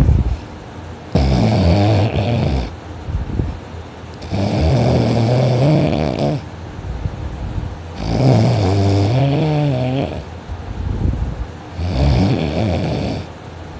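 A person sleeping deeply on their back, snoring loudly and heavily. Four long low buzzing snores come about every four seconds, with quieter breathing between them.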